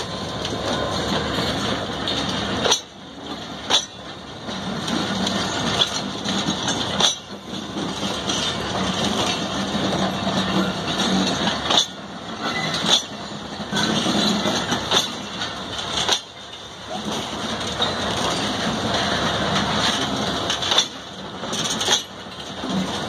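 Pakistan Railways passenger coaches rolling slowly past, wheels rumbling and rattling on the track. Sharp clacks come in pairs about a second apart, again every few seconds, as the wheelsets of each coach cross rail joints.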